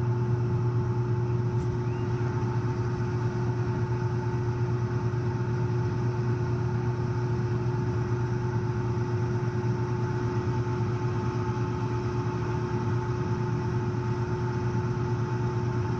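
Rooftop HVAC unit running with its fans on: a steady low hum with a faint steady whine above it.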